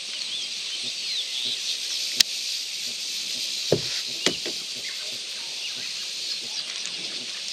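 Steady high-pitched insect drone with scattered bird chirps. A sharp click comes about two seconds in, and two dull knocks come around the middle, as the caught fish and lure are handled on the kayak's plastic deck.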